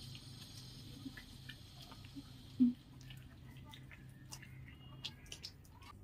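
Faint wet squishing and small clicks of palms massaging foamy face wash over a wet face, with one brief louder low sound about two and a half seconds in.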